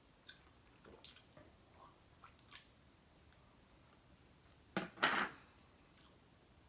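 Quiet eating sounds: soft chewing and small mouth clicks, then, about five seconds in, a sharp click and a short loud crinkle of a thin clear plastic food-container lid being handled.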